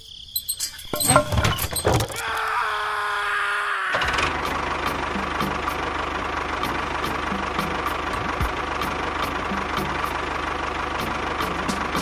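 Clicks and knocks, then a small motor whining for a couple of seconds with its pitch sagging slightly. From about four seconds in, a steady engine-like running sound with a low hum and light, regular ticking comes from a miniature model tractor.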